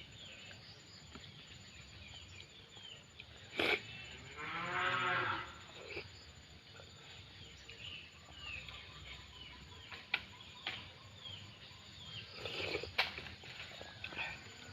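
A farm animal's drawn-out call, about four seconds in and lasting about a second and a half, with scattered small chirps and a few sharp clicks around it.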